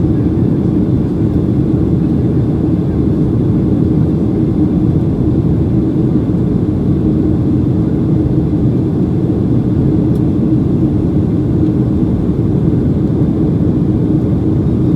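Steady cabin roar of a Boeing 737-800 in flight, heard inside the cabin over the wing: CFM56-7B engine noise and airflow, with a low steady hum running through it. The aircraft is on descent toward landing.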